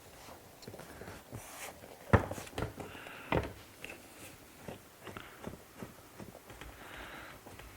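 Hand handling of a seat rail and its bolt hardware: scattered light clicks and knocks, the loudest about two seconds in and another about a second later.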